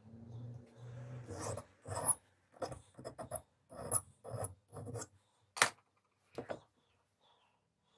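Hand filing: a file worked in short, irregular strokes, about one to two a second, which stop about six seconds in.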